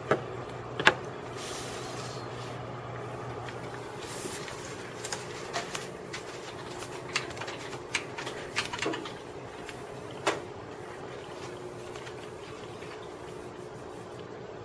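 Steady low room hum with about ten short clicks and knocks scattered through it. The sharpest click comes about a second in and a duller knock about ten seconds in.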